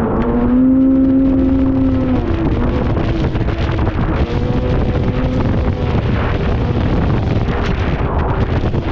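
Two-stroke snowmobile engine running at speed, its tone climbing just before and holding steady for about two seconds, then easing off. Wind noise on the microphone is heavy throughout.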